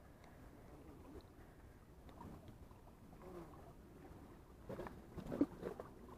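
Faint sea water lapping and washing against shore rocks, with a few slightly louder sounds about five seconds in.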